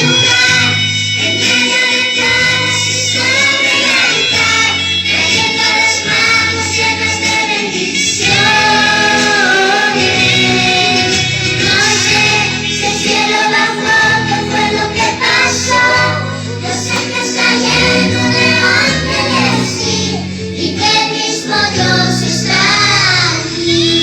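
Christian song with singing voices over instrumental backing, a steady melody running throughout.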